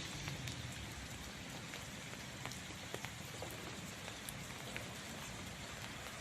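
Steady rain falling, with individual drops ticking sharply here and there over the even patter.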